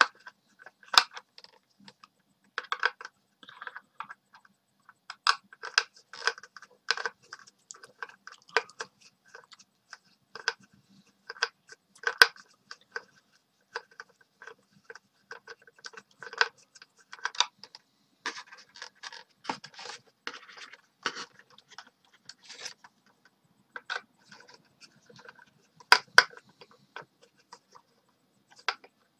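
A screwdriver working screws out of the plastic packaging base of a die-cast model car, with the model and packaging handled: irregular scratches, scrapes and small clicks. The sharpest clicks come about a second in, about twelve seconds in and near twenty-six seconds.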